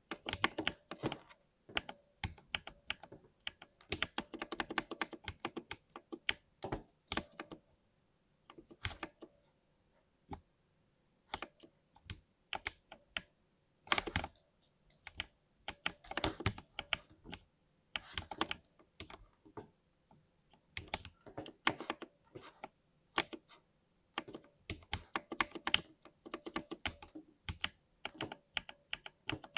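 Typing on a lubed 60% mechanical keyboard: irregular runs of key presses, some fast and dense, broken by short pauses. A faint steady tone sits underneath.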